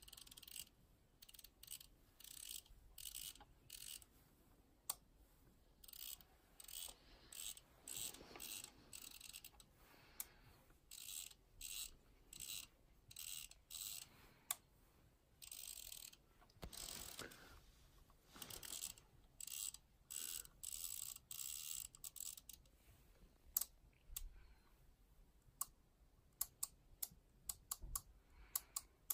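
Handheld wireless CNC pendant (XHC WHB04B-4 handwheel) being worked by hand: faint, quick runs of clicks from its detented jog dial being turned, in short bursts. Near the end these give way to separate single sharp clicks, a few at a time.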